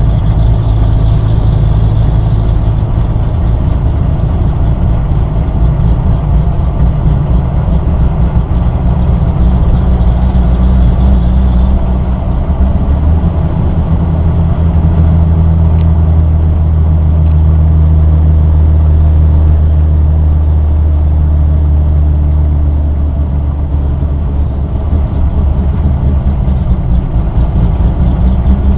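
Loud, low droning from a car, heard from inside the cabin, which is a terrible sound. Its deepest tone shifts lower about twelve seconds in.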